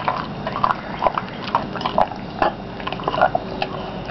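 A pit bull–type dog gnawing and tearing at a raw chicken quarter held in a hand: irregular wet chewing with many short crunching clicks.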